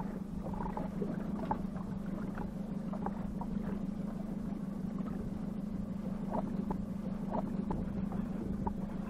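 Outboard motor of a small fishing boat running at a steady low speed, a constant low hum, with scattered short light ticks over it.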